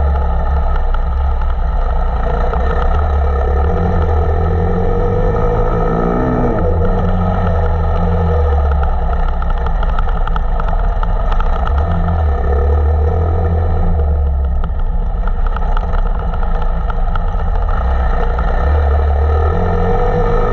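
KTM 525 EXC dirt bike's four-stroke single-cylinder engine running under way, its note rising and falling over and over as the throttle is opened and shut.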